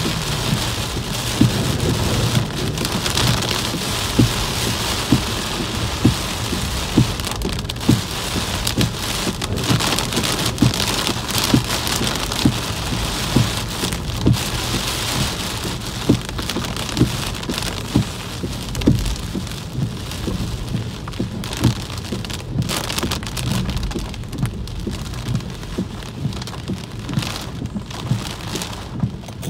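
Heavy rain pelting a car's roof and windshield, heard from inside the moving car: a loud, dense hiss dotted with frequent sharp taps. It eases somewhat in the last third.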